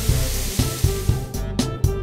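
Hiss of a water-spray sound effect over background music with a steady beat; the spray cuts off about two-thirds of the way through, leaving the music alone.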